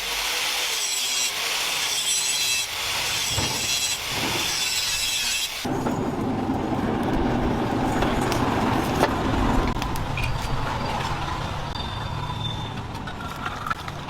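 Repeated rasping strokes of a hand tool working material. About six seconds in they cut off suddenly, and a lower, steady rushing noise follows.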